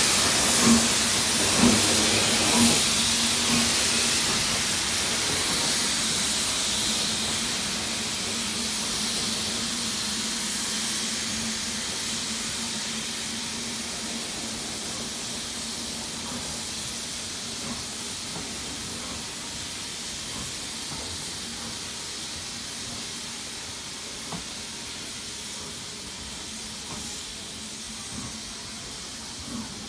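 Steam train hauled by BR Standard Class 4 4-6-0 No. 75069 passing and drawing away: a steady hiss of steam and a low hum from the rolling coaches, fading slowly, with a few wheel clicks over rail joints in the first few seconds.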